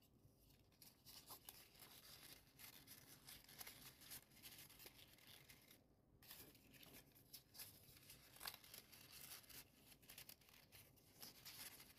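Near silence, with faint scattered rustles and light ticks of paper origami units being handled and slotted together.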